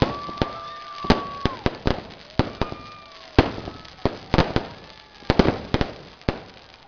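Fireworks going off in quick, irregular clusters of sharp bangs, with whistles held for a second or so, one at the start and a shorter one about three seconds in.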